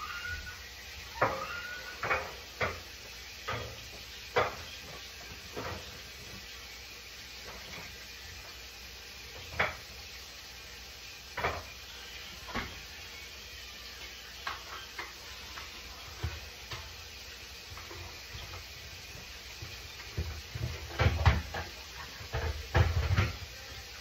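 Kitchen clatter: scattered knocks and clinks of dishes and cupboard doors being handled, with a burst of louder knocks near the end.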